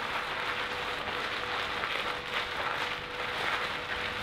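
Thin plastic bag crinkling and rustling as it is squeezed and kneaded by hand, working soaked soy chunks through oil and spices. A faint steady hum sits underneath.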